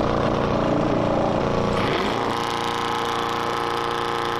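A car engine revving hard while a car drifts or skids, shifting at first, then held at steady high revs from about halfway through.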